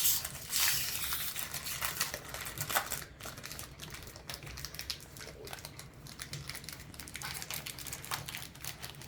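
Crinkling of a Pokémon booster pack's foil wrapper being pulled open and the cards slid out, loudest in the first second, then quieter scattered crinkles and card rustling.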